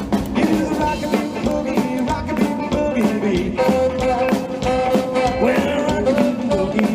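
Live rockabilly band playing an instrumental passage with a steady beat.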